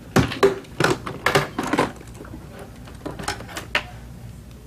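A quick run of sharp clicks and knocks of hard objects, then a few more about three seconds in.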